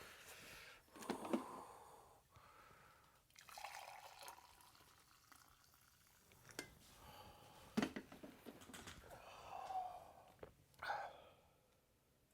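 Faint, scattered small clicks and knocks with brief dripping-liquid sounds, the sort of quiet handling noise of someone moving about a kitchen.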